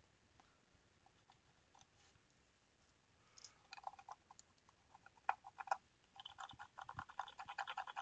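Faint scratching and clicking of a hand tool's tip working against the small components of an engine computer's circuit board. It starts about three and a half seconds in and turns into a rapid run of fine ticks for the last two seconds.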